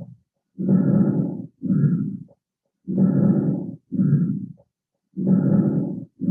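Recorded lung sounds heard through a stethoscope: breathing in a steady rhythm, about three breath cycles, each a longer sound followed by a shorter one. The recording demonstrates fine crepitant crackles at the end of inspiration, the kind heard in heart failure, pneumonia or alveolar hemorrhage.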